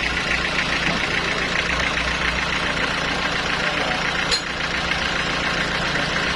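A sawmill's engine running steadily, with one short sharp click about four seconds in.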